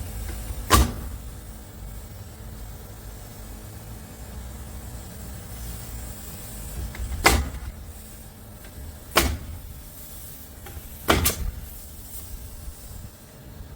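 Four sharp knocks, unevenly spaced, over a steady low rumbling background: impacts from framing work on the garage.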